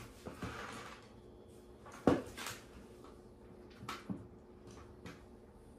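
Small plastic clicks and knocks of LEGO Technic pieces being handled and picked up: one sharp click about two seconds in, then a few fainter ones.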